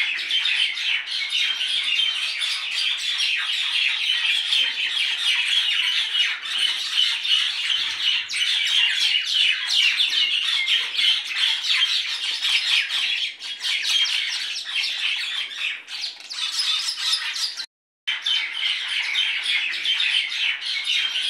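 Dense, continuous chatter of many small birds chirping and calling over one another, with a brief dropout near the end.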